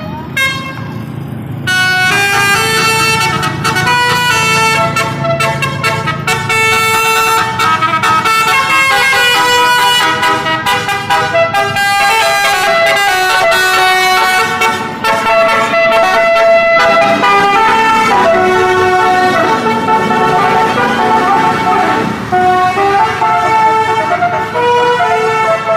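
Tour bus's basuri musical horn, a multi-trumpet horn playing a tune note by note. It gets loud about two seconds in.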